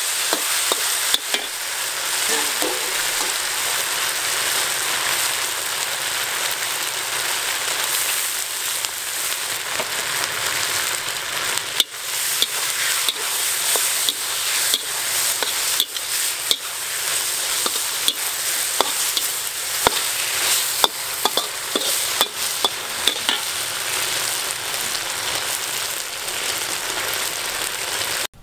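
Beef kidney and bell peppers sizzling in a hot wok as they are stir-fried, with a metal spatula scraping and clicking against the wok again and again. The sizzle cuts off suddenly near the end.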